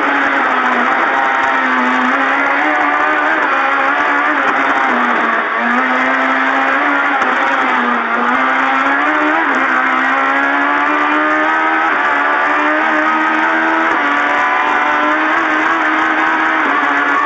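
Rally-prepared rear-wheel-drive Toyota Starlet with an 1800cc engine revving hard, its pitch repeatedly climbing and dropping back as it accelerates and changes gear, with short dips about five and a half and eight seconds in.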